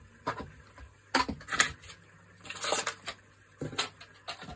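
Handling noise of small objects being moved about on a desk: a string of light taps and clicks, with a short rustle about two and a half seconds in.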